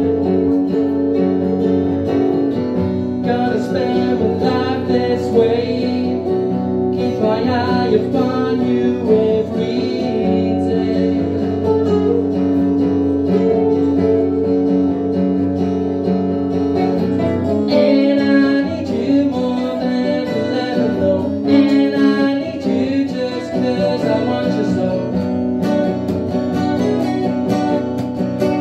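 Live acoustic music: two acoustic guitars strumming, with a harmonica playing melody phrases into a microphone over them.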